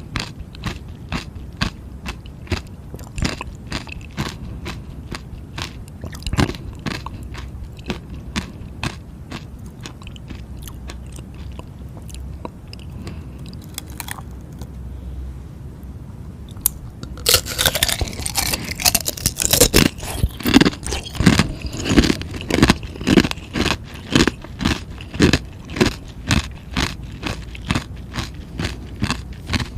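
A person chewing frozen ice, with a steady run of crunches about two to three a second. The crunching eases off for a few seconds past the middle, then a louder, sharper bout of crunching begins.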